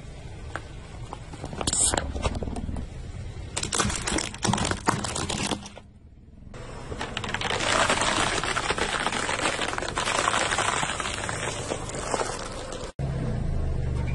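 Car tyre rolling slowly over objects and crushing them: scattered sharp cracks and pops as plastic balls give way, then a long dense crackling as dry spaghetti sticks in floral foam snap under the tyre. Near the end a car engine's low hum.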